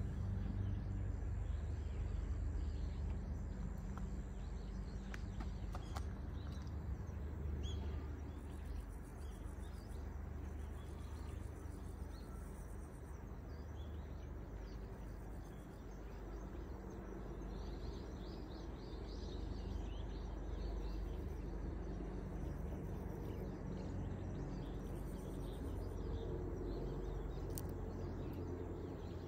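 Outdoor ambience on a hilltop above a city: a steady low rumble from wind and the distant town, with small birds chirping faintly, more of them in the second half.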